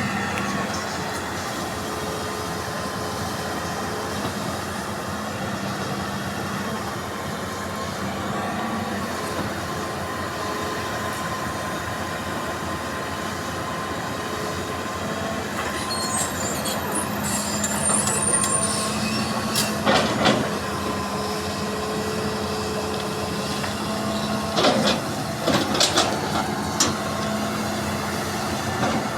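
Hydraulic excavator's diesel engine running steadily under load while it pushes over trees, with a high metallic squealing a little past the middle and several sharp knocks near the end, the loudest moments.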